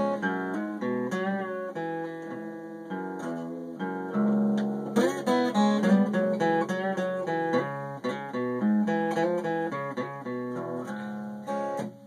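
Acoustic guitar played solo, strummed and picked in a steady run of chords and single notes.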